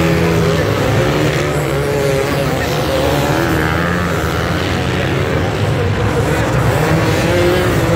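Many motocross bikes running and revving together. Their overlapping engine notes keep rising and falling without a break.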